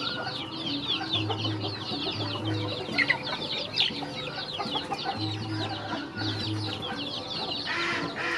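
A crowd of young chickens and ducklings peeping nonstop while they feed, many short, high, falling chirps overlapping each other. Low, steady music notes come and go underneath.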